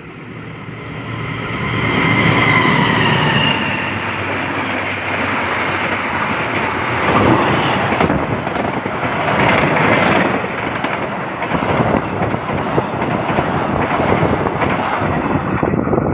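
Train passing close at speed: the noise builds over the first two seconds with a falling tone as the front goes by, then a long steady rush of wheels on rail with rapid clacking, which drops away at the very end.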